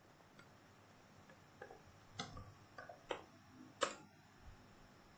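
Faint, scattered computer keyboard key clicks as a terminal command is typed, about half a dozen over a few seconds.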